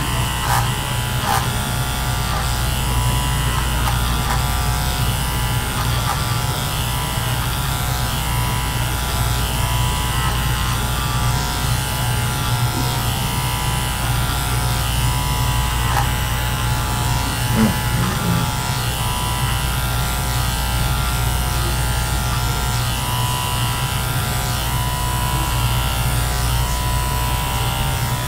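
Electric hair clippers running steadily as they cut through thick, grown-out hair, with a few light clicks near the start and one brief louder knock about eighteen seconds in.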